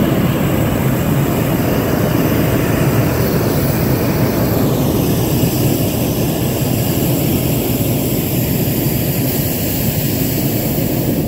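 Hot-air balloon's propane burner firing overhead in one long, steady, loud blast that cuts off suddenly near the end.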